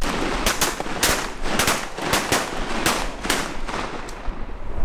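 Several shotguns fire a rapid volley together: a dozen or so shots in quick, uneven succession, some overlapping. The volley stops a little before the end.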